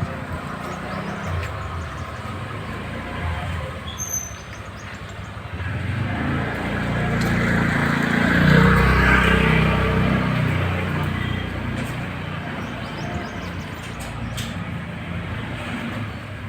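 A motor vehicle goes by, its engine and road noise growing louder about six seconds in, peaking around the middle and fading again.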